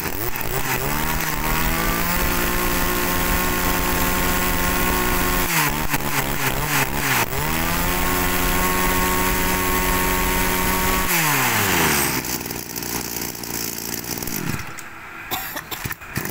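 Small two-stroke brush cutter engine revved to high speed and held, throttle eased off briefly about six seconds in and opened again, then let down toward idle about eleven seconds in.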